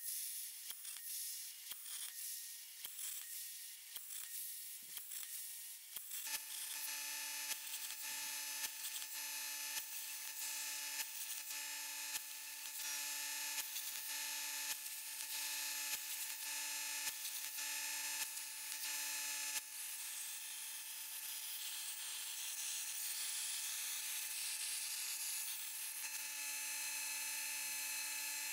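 CNC plasma table cutting 2 mm steel plate. There is a high hiss with evenly spaced ticks at first, then about six seconds in a steady whine joins the hiss and holds.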